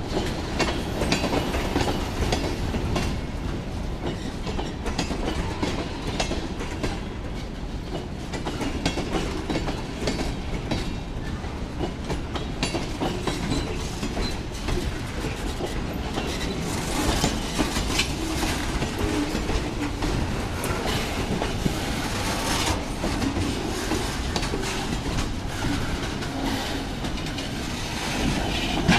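Freight train of tank cars and boxcars rolling past close by: a steady rumble of steel wheels on rail with a running clickety-clack of wheels over the rail joints.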